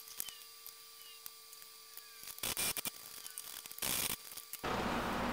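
Food processor pulsed in short bursts, chopping roasted tomatoes for salsa: a cluster of quick pulses about two and a half seconds in and another near four seconds, after a few light clicks.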